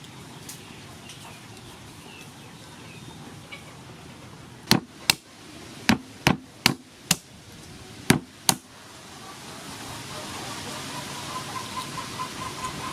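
Eight sharp knocks in four quick pairs, each pair about half a second apart, over a few seconds in the middle. After them a hiss slowly rises.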